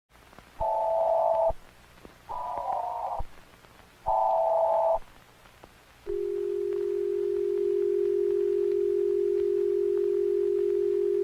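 Simulated Emergency Alert System tones: three short buzzing data bursts about a second each, like EAS header bursts, then a single steady alert tone that begins about six seconds in and holds.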